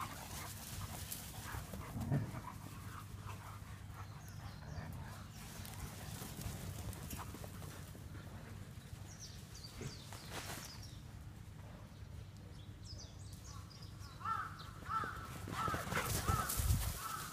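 Dogs at play, chasing one another, with a quick series of short, pitched yips near the end.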